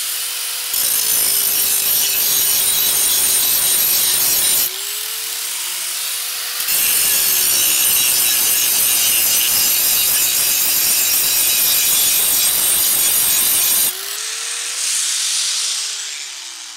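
A 4-1/2-inch electric angle grinder grinding the cutting edge of a steel lawnmower blade to sharpen it: the motor's steady whine with two long passes of loud, harsh grinding, and the motor running free in between. Near the end the motor winds down.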